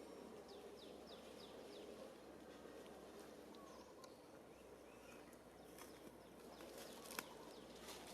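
Faint outdoor ambience with a steady low hiss. A quick series of short, high, falling chirps comes in the first second and a half, and scattered sharp clicks and snaps follow later, with one louder click about seven seconds in.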